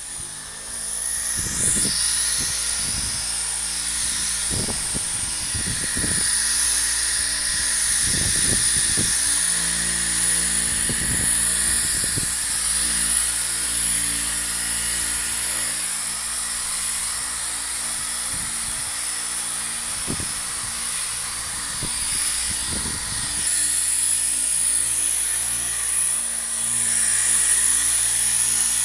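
Electric polisher (buffer) running steadily with a high whine, working a fine compound over a freshly painted car bumper to take out the buffing marks left by the coarser stage.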